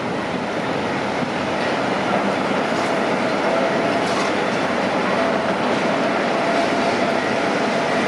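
Heavy construction machinery running steadily, a continuous mechanical din with a faint whine coming in partway through.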